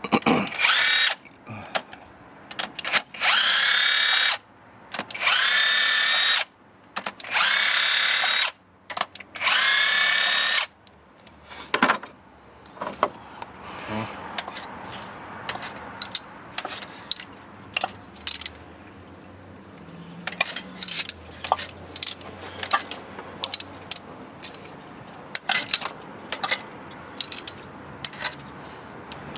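Cordless power tool running out cylinder head bolts in about five bursts of a second or two each, the motor speeding up at the start of each burst. After the last burst, scattered metal clinks and taps follow.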